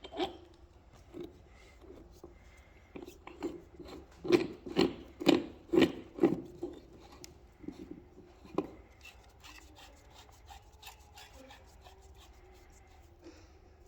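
Metal parts of a cable anchor tensioner being handled and fitted together, the jaws and spring going into the cassette: a run of knocks and clicks, loudest as about five even taps some four seconds in, two a second, then fainter clicks and rubbing.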